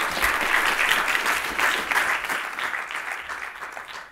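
Conference audience applauding at the end of a talk. The applause is loudest in the first second or two, then dies away toward the end.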